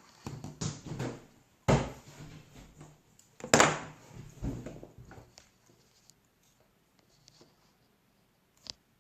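Close handling noises of small hard objects being worked by hand: scraping and rustling with two sharp knocks about two seconds apart, then a single click near the end.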